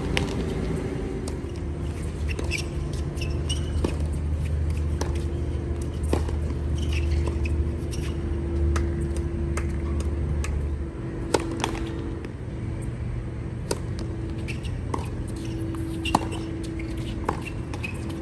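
Tennis ball struck by racquets in a doubles rally on a hard court: sharp pops every second or two, mixed with short squeaks of shoes on the court surface. A steady low hum runs underneath and drops away about eleven seconds in.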